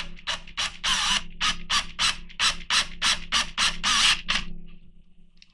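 A drill bit grinding into the metal rivet of a diecast toy car in short rasping strokes, about four a second, over a steady motor hum. Both stop near the end.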